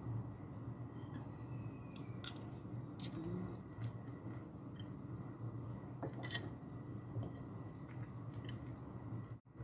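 Metal fork and spoon clinking and scraping against a ceramic plate while eating, a handful of short sharp clicks spread through, over a steady low hum. The sound cuts out briefly near the end.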